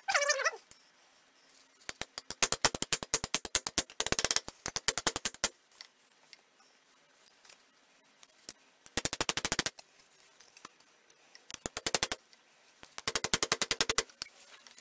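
Ball-peen hammer tapping a thin sheet-steel bottle opener on an anvil face in several quick runs of light, rapid blows with short pauses between, bending the ear piece down. A short falling squeak at the very start.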